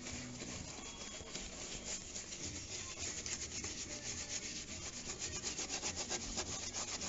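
A brush scrubbing the soapy, factory-undercoated wheel well and underbody of a car, in quick, rhythmic back-and-forth strokes that grow stronger through the second half.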